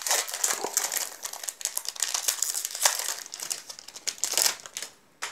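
Foil wrapper of a Magic: The Gathering booster pack crinkling and tearing as it is ripped open by hand. The crackling dies away near the end, followed by a single click.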